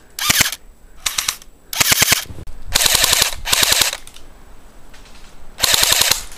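Airsoft rifle firing six short full-auto bursts, each a rapid rattle of shots lasting under a second, with gaps of about half a second to two seconds between them.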